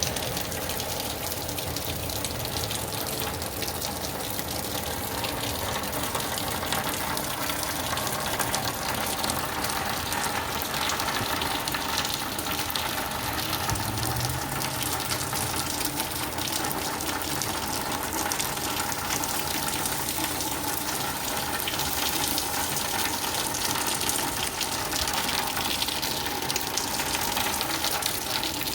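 Heavy rain pouring down steadily, with a gushing water sound.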